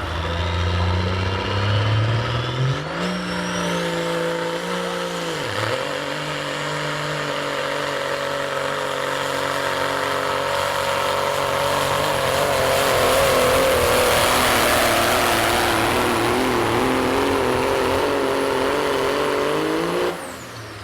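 A pulling vehicle's engine run hard under load. Its pitch climbs in steps over the first few seconds, dips once briefly, then holds high for a long stretch with a thin high whine above it. It cuts off abruptly near the end.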